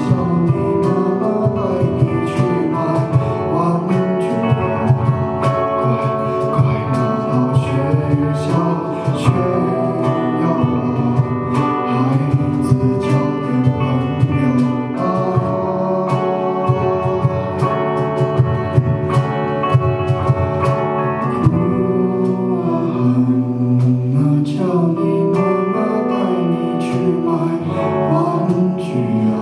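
Live acoustic band music: guitars playing over a steady cajón beat, with a voice at times.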